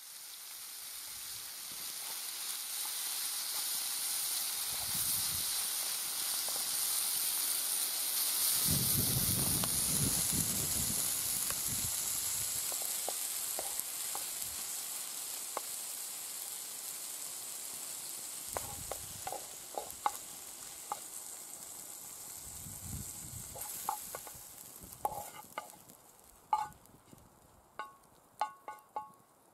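Chicken and red peppers sizzling steadily in a hot frying pan. The sizzle fades in the last few seconds, while a wooden utensil clicks and scrapes in the pan as the food is emptied into a bowl.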